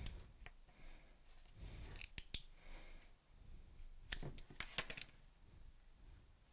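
Faint scattered clicks and scrapes of a hand tool prying at the plastic case of a LiFePO4 motorcycle battery to get the lid off. The clicks come singly near the start and in small clusters about two seconds in and just after four seconds.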